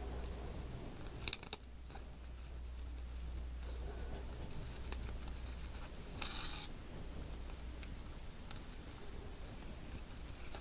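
Satin ribbon rustling and thread drawn through as a ribbon bow is hand-sewn with needle and thimble: faint scratches and small clicks, with a louder swish a little past six seconds in, over a steady low hum.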